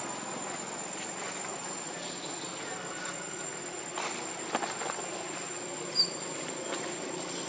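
Insects holding one steady high-pitched note over a hissy outdoor background. A few faint taps or rustles come around four to five seconds in, and one short, sharp high chirp about six seconds in.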